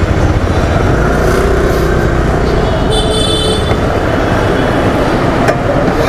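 Steady rumble of engines and road traffic around a fuel station, with a short high-pitched tone about three seconds in and a sharp click shortly before the end.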